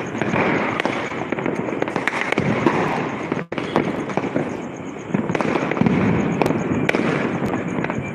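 Many firecrackers and fireworks going off at once across a city: a dense, continuous crackle of overlapping pops and bangs, with sharper cracks scattered through it. The sound cuts out for an instant about three and a half seconds in.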